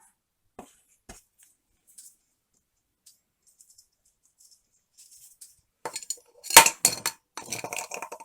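Small hard parts clinking and rattling as they are handled and sorted on a workbench, with a few faint ticks first and then a busy clatter in the last couple of seconds, its sharpest clink about six and a half seconds in.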